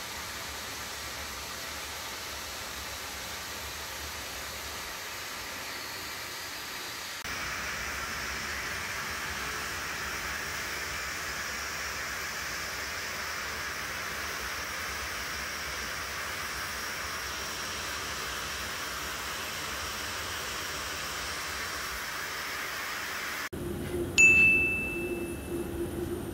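Steady rushing noise of a Boeing 737's jet engines idling as the airliner taxis in to the gate. The noise changes character twice at sudden cuts. Near the end a bright ding rings out and fades: a subscribe-button sound effect.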